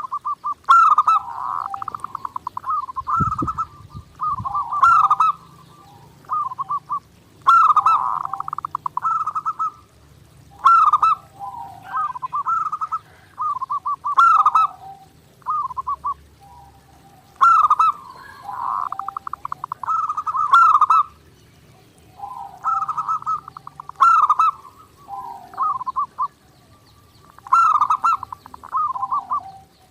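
Zebra doves (perkutut) cooing without pause: phrase after phrase of fast rolling trills and clipped coo notes, with short gaps between them. A brief low thump about three seconds in.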